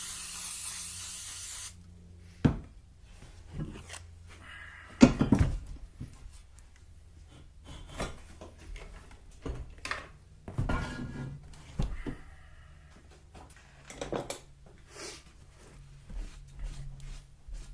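Aerosol brake cleaner spraying in one steady hiss lasting under two seconds, then scattered knocks, clanks and rubbing as the exhaust manifold is wiped and scrubbed clean, the loudest knock about five seconds in.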